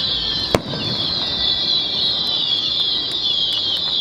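A firework shell bursts with one sharp bang about half a second in. Under it runs a steady, dense, high-pitched chirring that drifts slowly lower.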